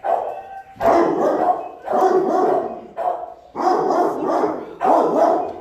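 Shelter dogs barking loudly in a steady run, about one bark a second.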